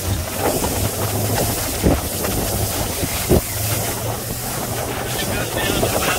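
Small motorboat underway on calm water: wind rushes over the microphone above a steady low engine hum. A few short thumps come from the hull meeting small waves, the clearest about two and three and a half seconds in.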